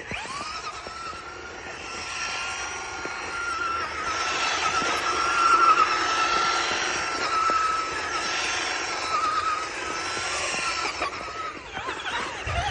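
Electric RC car motor whining at a high, slightly wavering pitch as the car spins its wheels in snow, winding up at the start and cutting off near the end.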